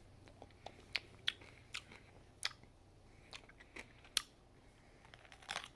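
Raw cucumber being bitten and chewed, a run of irregular crisp crunches, the sharpest about four seconds in, with a quick cluster near the end.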